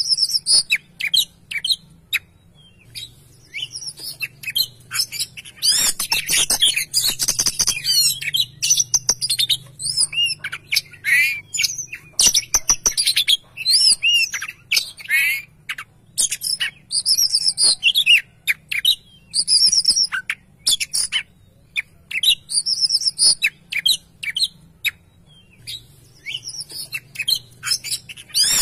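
Oriental magpie-robin singing a long, varied run of sharp whistled phrases. The notes rise and fall, are mixed with clicks, and come in quick bursts separated by short pauses.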